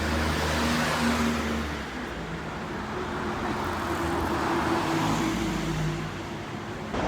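City street ambience: steady traffic noise with motor vehicles, a heavier engine rumble in the first couple of seconds.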